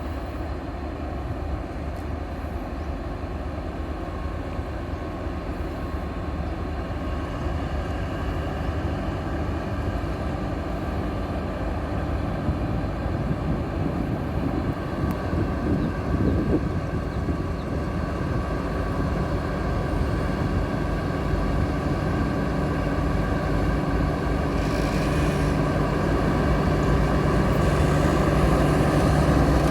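Diesel locomotive engine running steadily with a low hum, growing gradually louder throughout as it draws nearer.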